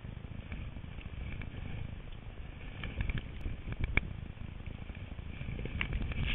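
Low rumble of wind and movement on a skier's own camera as he skis into deep powder, with a few sharp clicks.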